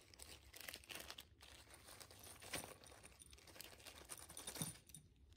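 Faint crinkling and rustling of a small plastic parts bag of brass rivets as it is opened and handled, in irregular crackles.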